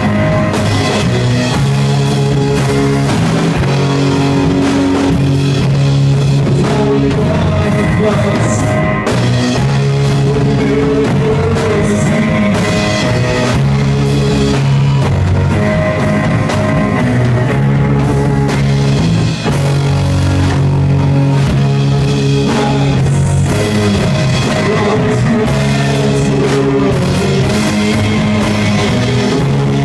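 A rock band playing live at full volume, with guitar and a drum kit keeping a steady beat throughout.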